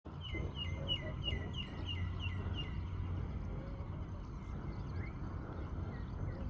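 A bird calling a quick run of about eight matching notes, each dropping in pitch, then a few scattered fainter calls, over a steady low rumble.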